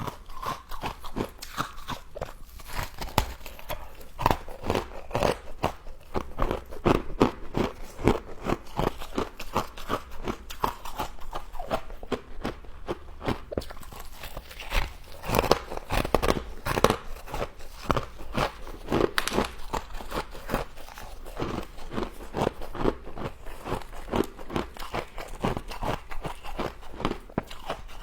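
Frost being bitten and chewed up close: a steady run of crisp crunches and crackles in quick, irregular succession.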